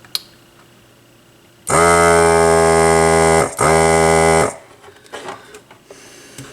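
A loud, steady electric buzzer tone sounding twice: about two seconds, a brief break, then about one second more.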